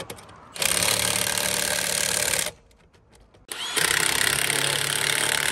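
Milwaukee cordless impact wrench hammering on a wheel's lug nuts in two runs of about two seconds each, with a short pause between.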